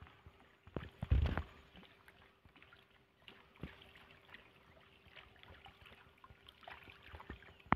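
Small irregular splashes and plops of a topwater frog lure being retrieved across the water surface, with a louder low thump about a second in.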